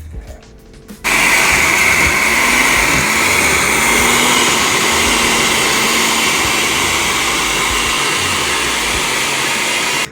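Countertop blender running steadily for about nine seconds, starting abruptly about a second in and cutting off abruptly near the end, blending a salsa.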